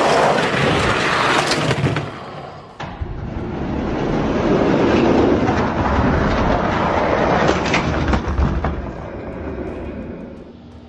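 Two die-cast toy monster trucks rolling down a plastic race track: a continuous rattling rumble of their wheels on the track. It dips briefly about two and a half seconds in, swells again, then fades toward the end.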